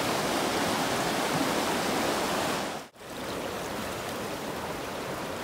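Fast-flowing river water rushing over a small weir and rapids, a steady broad rush. It cuts out for a moment about three seconds in and carries on a little quieter.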